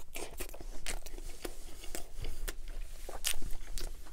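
Close-miked chewing of a bite of Big Mac: irregular clicks and soft crunches of mouth and food, a little louder a little after three seconds in.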